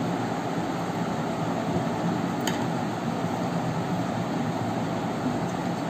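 Steady background hum and hiss of a running mechanical appliance, with one faint click about two and a half seconds in.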